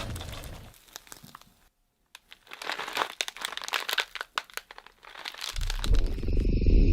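Dense, sharp crinkling and crackling, like something being crumpled or crunched, for about three seconds after a short silence, followed by a low rumble that swells loudly near the end.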